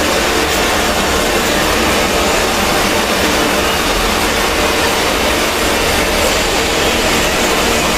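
Loud, heavily distorted, bass-boosted meme sound effect: a steady wall of harsh noise that holds at the same level throughout, with no breaks or changes.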